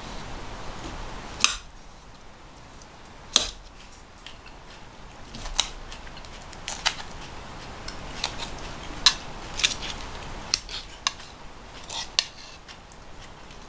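Metal forks clinking and tapping against ceramic bowls and plates while people eat, about a dozen sharp, irregularly spaced clicks.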